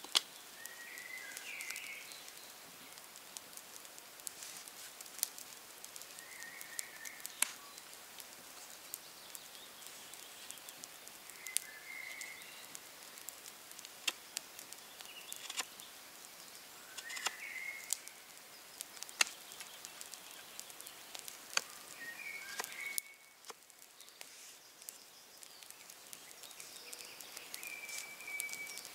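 Knife whittling a green wood stick: sharp, irregular clicks of the blade biting into the wood. Short bird calls chirp every few seconds in the background.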